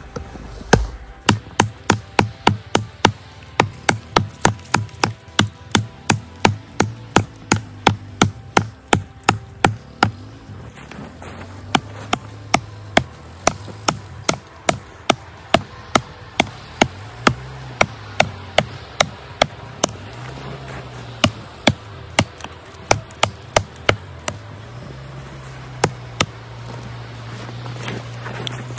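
Cold Steel Trench Hawk tomahawk chopping into a small standing log: repeated sharp chops of the steel head biting into wood, about two a second, then after a short pause about ten seconds in, more chops broken by a few brief pauses.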